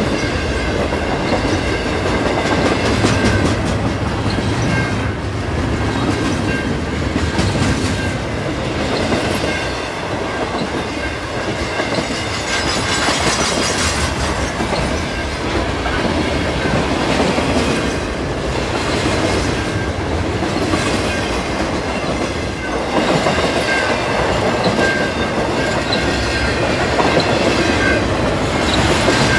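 Cars of an intermodal freight train rolling past at speed, the wheels clattering rhythmically over the rails, with a faint steady high tone above the rumble.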